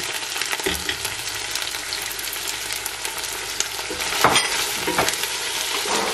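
Sliced tomatoes, onions and spices sizzling in hot oil in a stainless steel pot, with a wooden spatula scraping and knocking against the pot as they are stirred in. The sizzle is steady; the knocks come a few times, the loudest about four seconds in.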